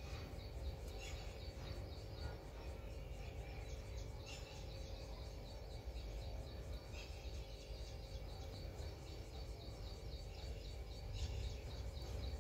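Rose-ringed parakeet nibbling chapati held in its foot: a few faint bites and clicks, over a steady, high chirping repeated about three times a second.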